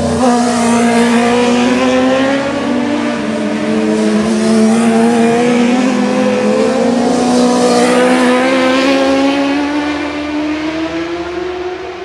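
A racing superbike engine at high revs, accelerating away from the bend. Its note climbs steadily and the sound fades toward the end.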